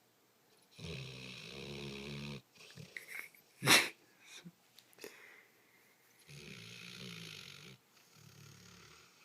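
Sleeping dog snoring: two long snores of about a second and a half each, a few seconds apart, then a weaker, shorter one near the end. Between the first two snores a single sharp click, louder than the snoring.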